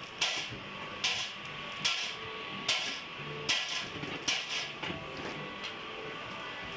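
One-bag mortar mixer running, with a clank about once every 0.8 seconds over a steady mechanical hum. The clanks die away about five seconds in.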